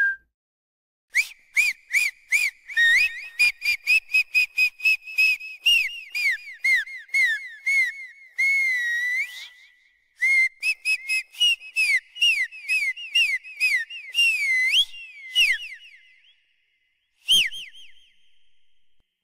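Whistling: a long run of short chirping notes, each sliding up and down in pitch. About halfway through comes one longer warbling note, and after a pause there is a last chirp near the end.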